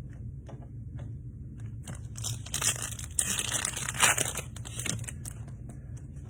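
Foil wrapper of a Topps Chrome trading-card pack being torn open and crinkled. A few light clicks come first, then about three seconds of tearing and crinkling, loudest around four seconds in.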